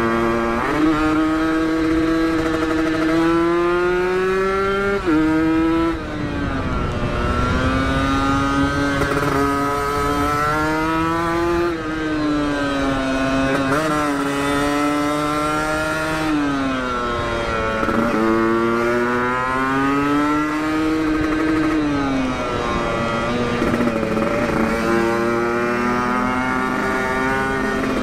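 Kawasaki Ninja two-stroke motorcycle with an aftermarket Aitech exhaust being ridden hard. The engine pitch climbs under throttle, then drops sharply at each gear change or throttle lift, over and over.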